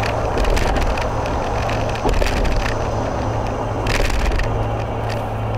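Cabin noise of a vehicle driving at freeway speed: a steady drone of engine and tyres with a low hum. Irregular crackling breaks through it every second or so, loudest about four seconds in.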